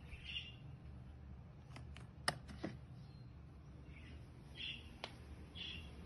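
A few sharp plastic clicks, the loudest about two seconds in, as the combined dust box and water tank is unlatched and pulled out of an OKP K8 robot vacuum. Short high chirps come and go over a faint low hum.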